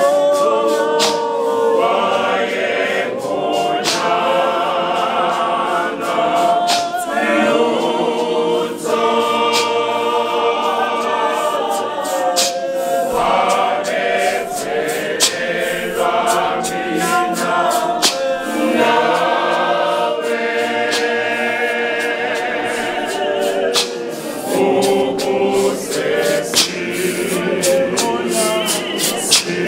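Church choir singing a hymn a cappella in several voice parts, with scattered sharp clicks.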